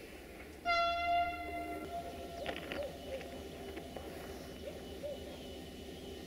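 Train horn sounding one steady blast of a little over a second, about a second in, from a diesel locomotive at the station.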